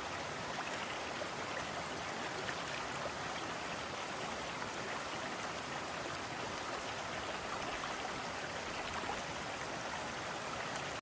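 Steady rushing of a small flowing creek.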